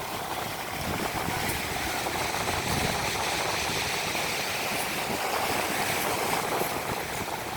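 Rough Black Sea waves washing and churning, a steady rushing noise.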